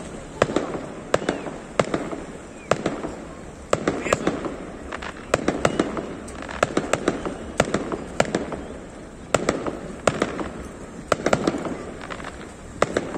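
Aerial fireworks display: a continuous series of sharp shell bursts at irregular intervals, often one to three a second, each trailing off in a crackling tail.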